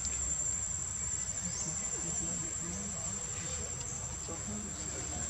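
Steady, high-pitched drone of insects, an unbroken single tone that holds level throughout.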